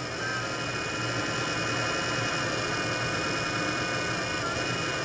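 Small 3D-printer cooling fan running with a steady buzzing whine. The buzz comes from its worn brass bushing, which lets the shaft rattle around instead of spinning true.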